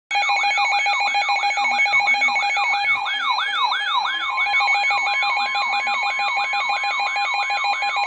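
Several weather alert radios sound their alarms together for a severe thunderstorm warning. A warbling electronic tone rises and falls about three times a second over steady beeping tones, and a further steady tone joins about four seconds in.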